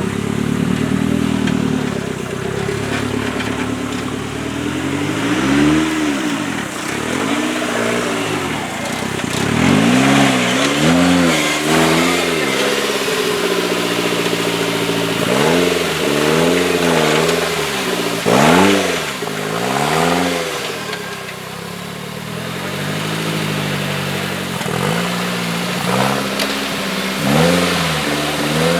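Modified off-road 4x4 competition truck's engine revving hard in repeated bursts, its pitch climbing and falling again and again as the driver works the throttle. A sharp knock about two-thirds of the way in is the loudest moment.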